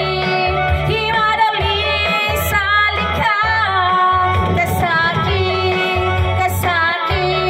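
A woman singing a cover song into a corded handheld microphone over backing music with a steady bass line.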